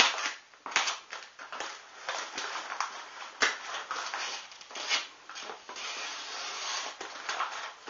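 A heavily taped mail package being worked open: irregular rustling, scraping and crinkling of packing tape and packaging, with a few sharp clicks.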